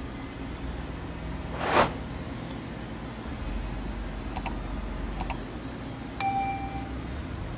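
Subscribe-animation sound effects: a brief whoosh about two seconds in, three sharp clicks a little later, then a bell-like ding that rings and fades, over a steady low hum.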